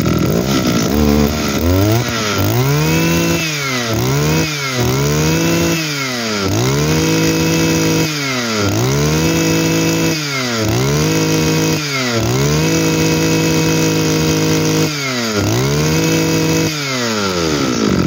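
Two-stroke engine of a Kioritz (Echo) QZ 2350G brush cutter, revved up by hand on the carburetor throttle lever and let back down to idle about eight times. Each rev is held briefly at high speed, the longest near the middle. The engine runs very smoothly ("rất êm") and picks up cleanly each time.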